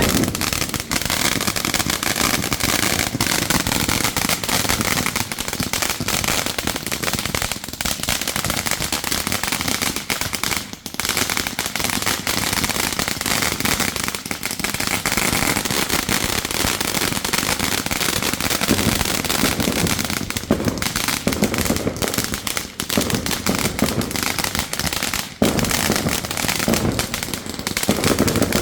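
Fireworks going off without a break, a dense run of crackles and pops with no pauses.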